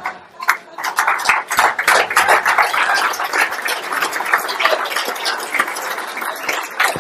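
Audience applauding: many hands clapping in a dense, continuous patter that starts about half a second in.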